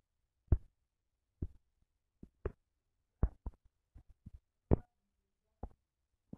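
About a dozen short, soft taps and knocks at irregular intervals, with silence between them. They fit fingertips tapping on a phone's touchscreen, picked up by the phone's own microphone.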